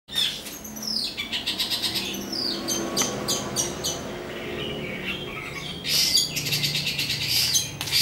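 Caged leafbird (cicak hijau) singing a busy, varied song: high falling whistles near the start, then fast rattling trills and harsh scratchy notes.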